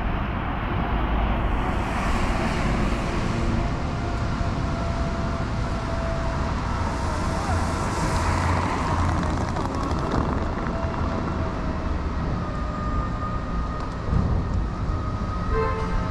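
Street traffic on a wet road: a steady low engine rumble, with the hiss of tyres on wet tarmac swelling about two seconds in and fading by about ten seconds.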